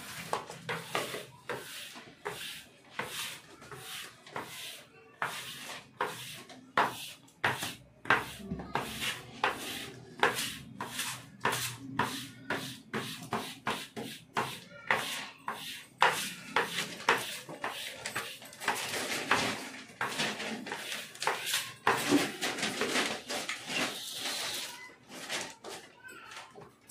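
A plastic squeegee rubbed in short strokes over a self-adhesive marble-pattern sheet on a kitchen slab, smoothing it down. The strokes come in quick succession, roughly two a second, each a brief scraping rasp.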